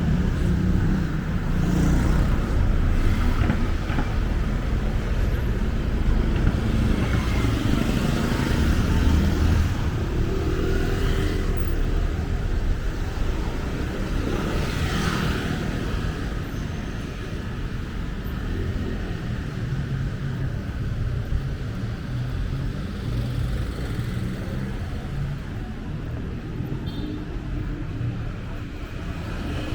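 City street traffic: cars and motorcycles running and passing in a steady rumble, with one vehicle passing louder about halfway through.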